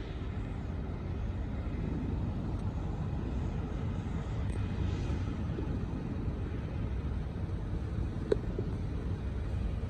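Norfolk Southern diesel locomotive running as it moves slowly through the yard, a steady low rumble. A brief sharp click comes about eight seconds in.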